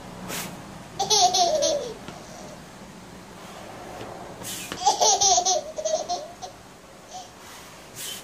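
A toddler giggling in two bursts, about a second in and again near the middle, each just after a brief noise.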